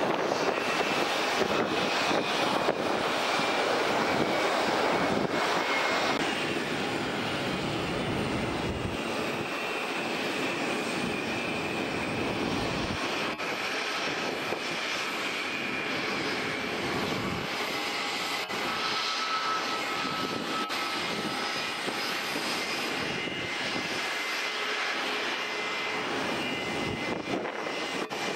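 Boeing 737 MAX's CFM LEAP-1B jet engines at taxi power as the airliner taxis past: a steady rush with a faint high whine, a little louder for the first six seconds or so.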